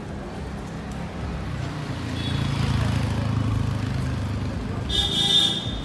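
City street traffic: a passing car's engine and tyres rumble, swelling through the middle. A short high-pitched horn sounds near the end.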